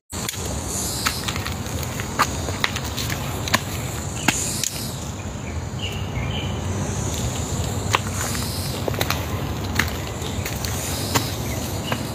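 A hiker's footsteps on a rocky trail while climbing, sharp steps coming roughly once a second at an uneven pace, over a steady low rumble of movement on the microphone.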